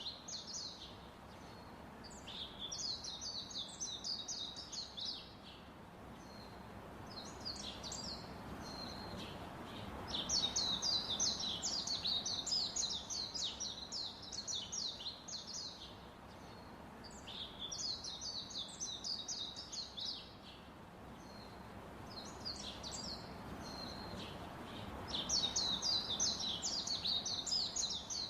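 Small birds chirping in repeated bursts of rapid high notes, each burst lasting two to four seconds with short pauses between, over a faint steady background hum.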